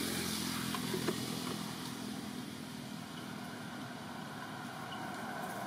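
Steady hum of an engine running, with a faint click about a second in.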